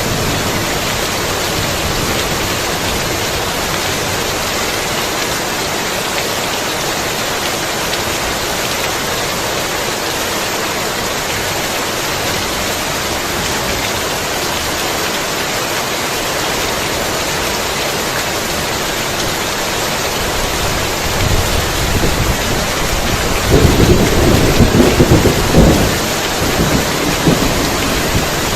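Heavy rain falling steadily in an even hiss, with thunder rolling in low about three-quarters of the way through and rumbling loudest near the end.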